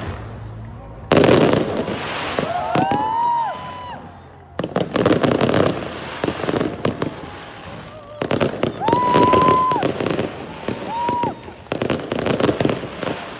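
Fireworks show: dense volleys of bangs and crackling, with rising whistles about two and a half seconds in and again past the middle.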